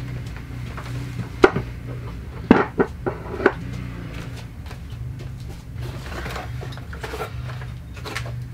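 Household items and cabinet doors being handled while kitchen things are put away: a sharp knock about a second and a half in, a cluster of knocks and clacks between two and a half and three and a half seconds in, then softer scattered clatter, over a steady low hum.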